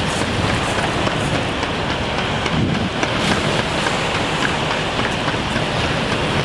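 Griffon 12000TD hovercraft's engines and lift fans running while it sits on the pad: a loud, steady rush of air with no clear engine note.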